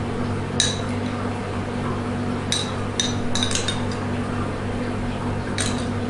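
About six light, ringing clinks of glassware knocking together as strawberry pieces go into a tall long drink glass, over a steady low hum.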